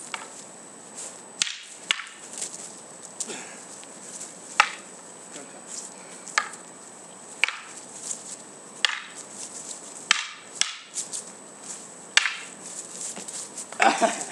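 Wooden bokken practice swords clacking against each other in sparring: about a dozen sharp, irregularly spaced wooden knocks, with a quick flurry of hits near the end.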